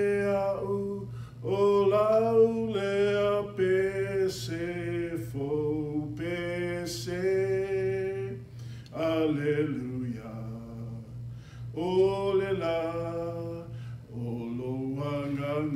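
A man singing a slow Samoan hymn unaccompanied, holding long notes in phrases with short breaks between them.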